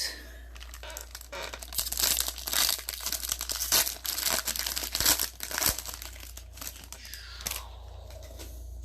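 Plastic trading-card packaging crinkling and rustling in irregular crackles as it is handled, with bouts of tearing-like noise, busiest in the middle.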